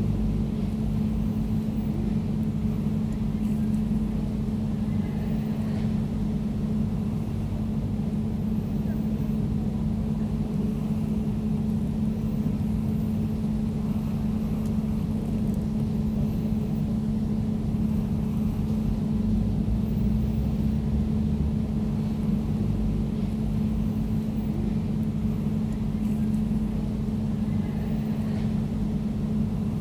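Air conditioner running steadily: a constant low hum with a rumble beneath it and a soft airy hiss above.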